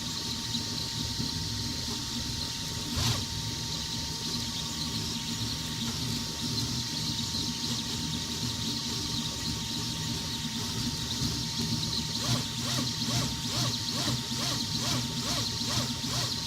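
3D printer running: a steady hiss with a thin steady whine and a low hum. About twelve seconds in, a run of quick ticks starts, roughly three a second.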